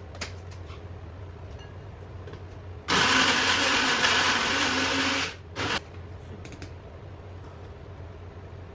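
Portable bottle blender blending orange pieces into juice: its motor whirs loudly for about two and a half seconds, stops, then gives one short pulse.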